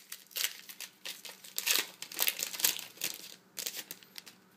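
Shiny foil wrapper of a Bowman Platinum baseball card pack crinkling and tearing as it is ripped open and pulled off the cards, in a run of short crackles that die down near the end.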